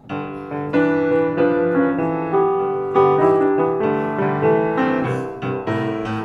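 Piano music: a melody of struck notes over held lower notes.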